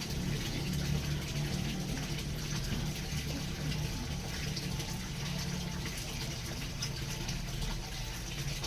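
Steady rush of running or splashing water, with a steady low hum underneath.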